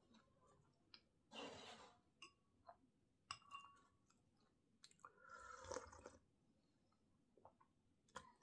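Faint, close-up chewing and mouth sounds of a person eating, with scattered small clicks and two louder short bursts of noise, one about a second and a half in and one around five to six seconds in.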